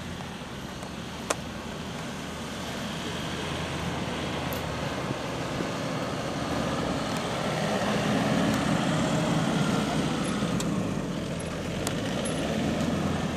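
Off-road vehicle's engine running under way, growing louder partway through as it works harder. A single sharp click about a second in.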